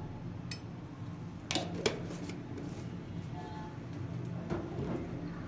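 A steel spoon knocking and scraping against a small glass bowl as ginger-garlic paste is tipped in onto the spices: a handful of sharp clicks in the first two and a half seconds, over a steady low hum.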